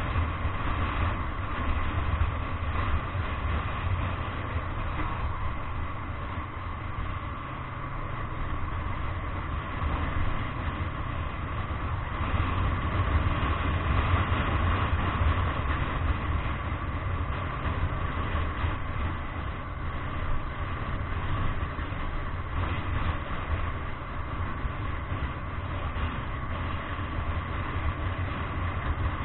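Engine and road noise of a moving car heard from inside the cabin, a steady low rumble with a faint steady hum higher up.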